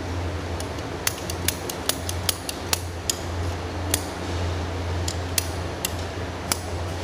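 Hand ratchet PVC pipe cutter clicking as its handles are squeezed through plastic pipe. A quick run of sharp clicks, about five a second, fills the first few seconds, then single clicks come a second or so apart, over a steady low hum.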